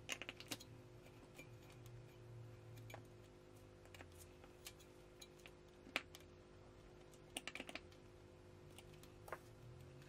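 Faint, sharp metallic clicks of a screwdriver turning the bolt that fixes a stack of washers to the back of a passive radiator as its tuning weight. There is a quick cluster at the start, a single sharper click about six seconds in, and a rapid run of clicks near eight seconds, over a faint steady hum.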